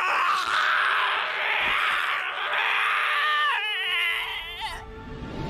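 A young man's voice-acted anguished screaming and sobbing: a hoarse, strained cry that turns into shaky, wavering wails before breaking off near the end.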